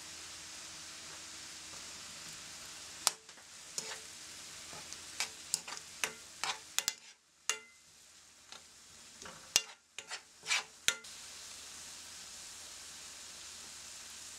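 Kimchi and chicken-breast cubes sizzling in a frying pan, with a spatula scraping and knocking against the pan in a run of sharp clicks from about three seconds in to about eleven seconds in as the food is stirred. The sizzling briefly drops away during the stirring.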